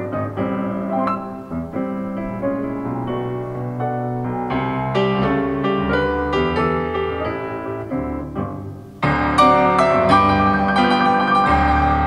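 Solo piano played live: a gentle flowing passage that eases down in level, then about nine seconds in the playing comes back suddenly louder with full, bright chords.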